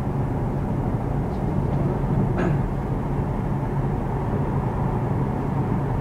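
Steady road and wind noise inside the cabin of an electric Tesla Model S cruising at about 114 km/h, a low even rumble with no engine sound.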